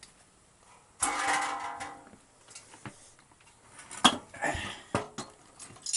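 Metal tools and parts clinking and knocking as they are handled, with a longer, louder sound about a second in and a few sharp knocks near the fourth second.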